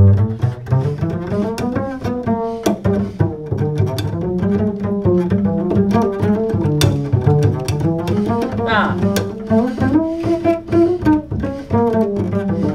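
Upright double bass played pizzicato as an unaccompanied jazz solo: a continuous run of quick plucked notes with sharp string attacks.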